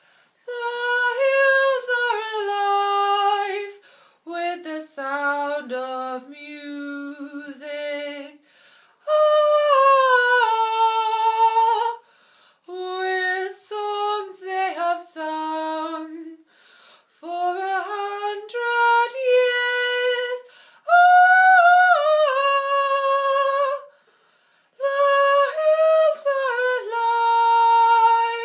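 One high voice singing a melody unaccompanied, in phrases of a few seconds with short breaks between.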